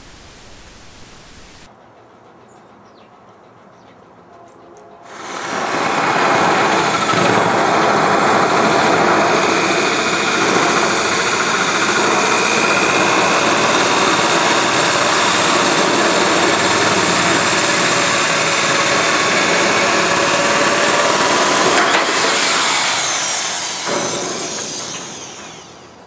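Electric metal shears running and cutting through galvanized steel sheet: a loud steady buzz that starts about five seconds in and dies away near the end.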